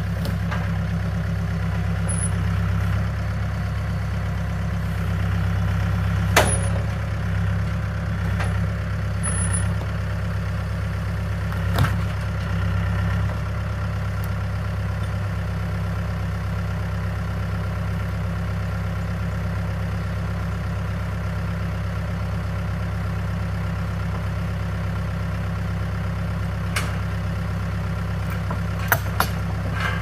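Mahindra compact tractor's diesel engine running steadily at idle, with a few brief sharp knocks now and then.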